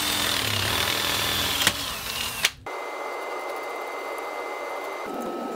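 Ryobi 18-volt cordless drill drilling into a brass pipe fitting held in a vise, boring the hole that will be tapped for a thumb screw; the motor whine sags and recovers as the bit cuts, then stops abruptly about two and a half seconds in. After it, a quieter steady hiss with a thin high whine.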